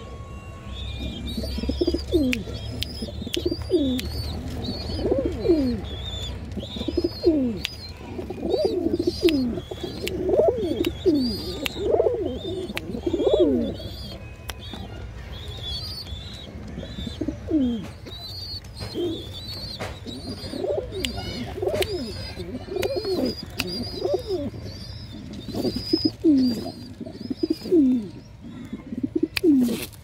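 Domestic pigeon cooing over and over, each coo a short call that falls in pitch, with a brief pause about halfway through. A steady run of high chirping from smaller birds sounds over it.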